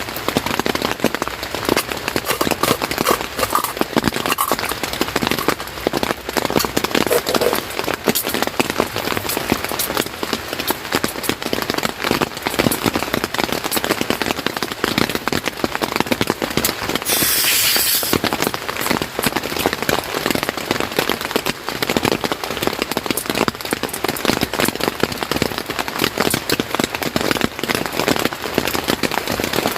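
Steady heavy rain pattering on a surface, a dense, even crackle of drops. A brief louder hiss breaks in a little past halfway.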